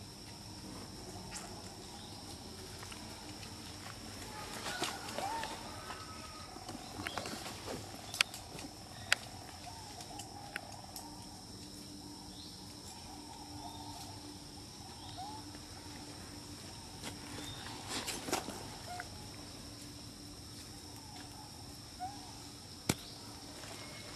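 Outdoor insect drone, a steady high hum, with brief squeaky animal calls scattered through it. A few sharp clicks come about eight and nine seconds in and again near the end.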